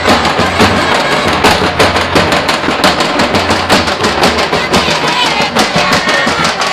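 Loud folk dance music with a fast, steady drum beat.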